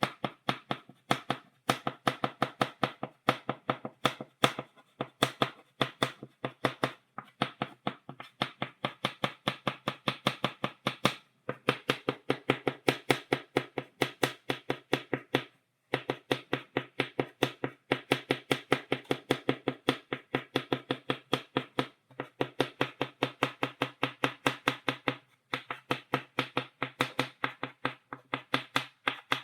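Chalk tapping against a blackboard, dotting out a stipple drawing: rapid sharp taps several times a second, in runs of a few seconds broken by brief pauses.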